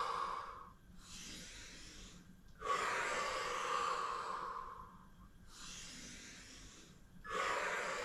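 A woman's heavy breathing during a Pilates plank: three loud, long breaths, one ending just after the start, one in the middle and one starting near the end, with softer breaths between them. It is the paced breathing of holding the plank.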